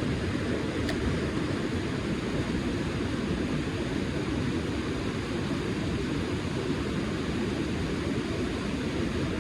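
Fast-flowing river rushing steadily, a constant even hiss and rumble of running water.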